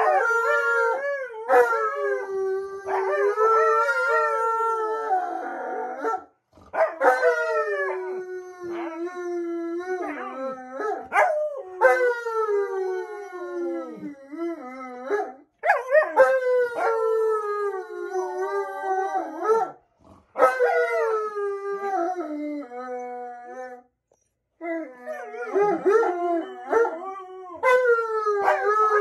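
A husky and a white fluffy dog howling together in long, overlapping howls that mostly slide down in pitch, broken by short pauses every few seconds.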